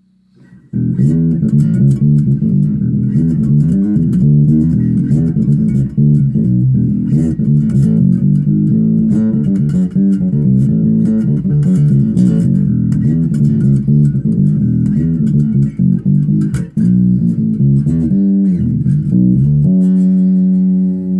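Zoot Wal-a-Like bass guitar played through a Gallien-Krueger amp and 1x12 cabinet: a busy run of plucked notes starts about a second in. Near the end it settles on one note left ringing.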